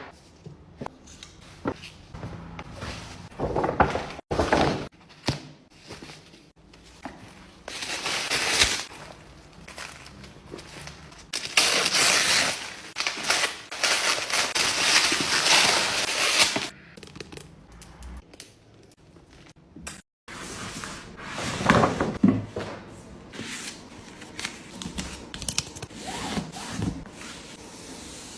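Paper and cardboard packaging being handled: irregular rustling with a few soft knocks, and a long, louder rustle near the middle.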